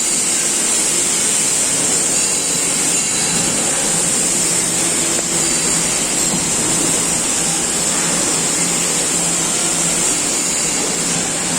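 Steady machine noise of a robotic welding line: a constant high hiss over a low hum, with no distinct strikes.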